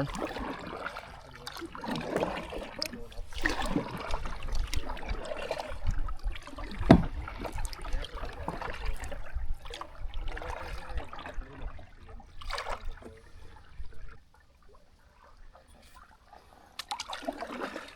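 Kayak paddling: irregular swishes of the paddle blades in the water with splashing and dripping, and one sharp knock about seven seconds in; quieter for a few seconds near the end.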